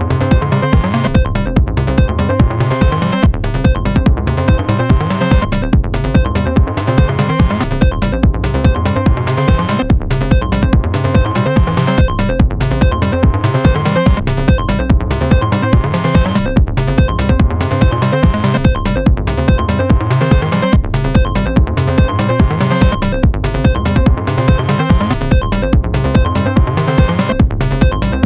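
Electronic techno music from Moog Sound Studio synthesizers and a Roland TR-09 drum machine: a steady, fast drum-machine beat under a low sequenced synth line, with a high synth tone recurring about every two seconds.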